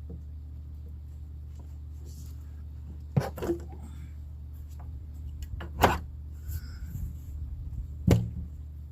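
Sharp knocks and clacks of tools and parts being handled in a car's engine bay, the loudest about six and eight seconds in, over a steady low hum.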